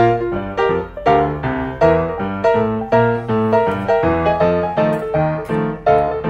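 Background piano music: a gentle melody of evenly paced notes, each ringing and fading.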